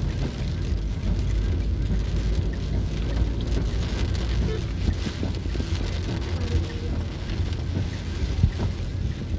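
Heard from inside a car driving in heavy rain: a steady low rumble of engine and wet road, with rain pattering on the body and windscreen. A single short knock sounds near the end.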